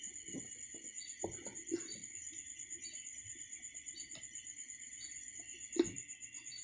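Steady, rapidly pulsing high chirring of night insects. Over it come scattered light clicks and knocks of hands handling a plastic motorcycle headlight housing, with one sharper knock near six seconds in.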